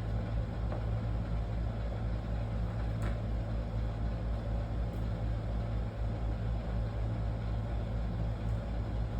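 A steady low hum throughout, with a few faint clicks as chess pieces are picked up and set down on the board while the knights and bishops are rearranged.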